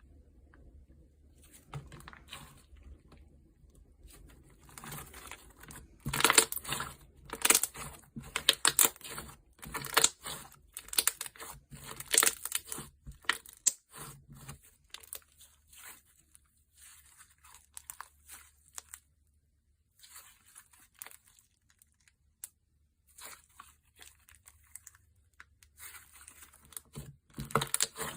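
Thick slime being stretched and squished by hand, giving bursts of crackling, popping and tearing sounds, loudest in the first half and again near the end.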